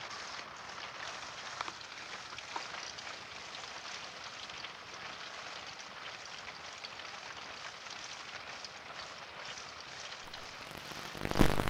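Steady rainfall, an even patter with a few individual drops ticking out. Near the end a sudden loud noise breaks in.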